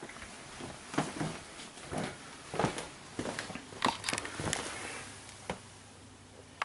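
Footsteps and handling knocks from a hand-held camera being carried across a floor: a scatter of short, uneven knocks and scuffs that die away about five seconds in.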